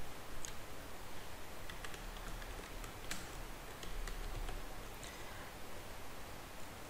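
Computer keyboard being typed on: a scattered, irregular run of faint key clicks as a password is entered.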